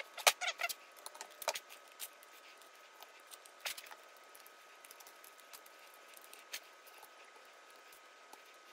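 A quick run of light clicks and rattles in the first second or two, then a few isolated ticks, over a faint steady high-pitched tone.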